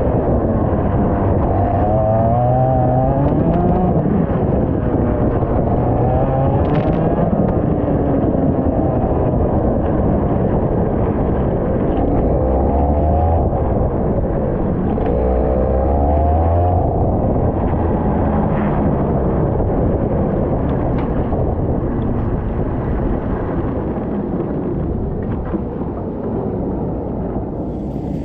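IAME X30 125cc two-stroke kart engine at racing speed, its pitch repeatedly rising on acceleration and falling into corners. The sound is muffled, with little treble.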